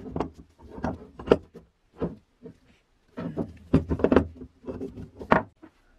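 Rusted cast-iron hand-crank food chopper being handled on a wooden tabletop: irregular knocks and clunks of metal against wood as it is moved and turned over, a cluster early on and a denser run in the second half.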